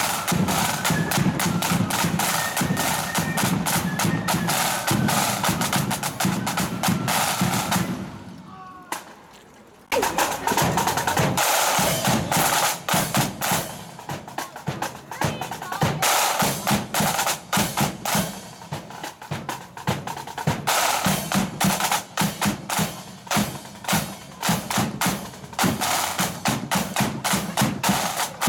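Marching band's snare drums playing a steady parade beat on the march. The drumming fades away about eight seconds in, then starts again suddenly about two seconds later.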